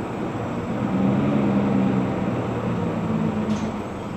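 A motor vehicle engine running, a low steady hum that swells about a second in and eases off after about three seconds, over constant street noise.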